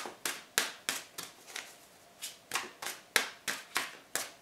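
Tarot cards being dealt one after another onto a wooden tabletop: about a dozen short, sharp clicks, roughly three a second, as each card is laid down for the spread.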